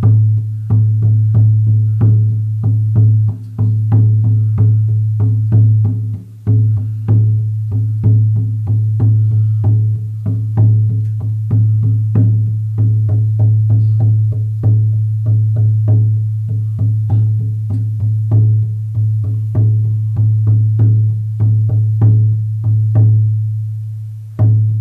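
14-inch deerskin shamanic frame drum on a beech frame, struck with a soft beater in a steady beat of about two strokes a second. Each stroke rings with a deep, mellow sustained tone that carries into the next, with two brief breaks in the rhythm in the first few seconds.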